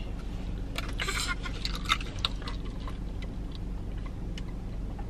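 Coffee being sipped through a plastic straw from a can: a short slurp about a second in, then a few small mouth clicks and swallows, over a steady low hum.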